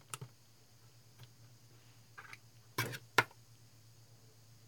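A few light clicks and taps from tweezers working the spark-gap wires on a small circuit board, the two loudest about three seconds in, over a faint steady low hum.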